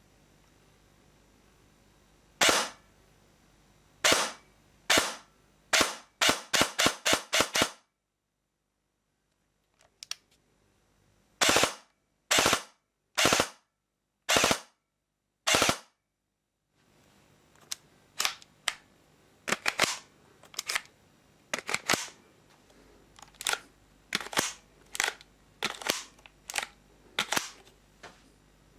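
ASG CZ Scorpion EVO 3 A1 airsoft electric gun firing single shots, each a short sharp snap of the gearbox cycling. A quick string of about six comes around six to seven seconds in. After a brief silence come five evenly spaced shots, then a longer run of quieter, irregularly spaced shots.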